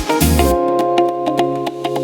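Background music: an electronic track with sustained keyboard chords, whose bass and beat drop out about half a second in.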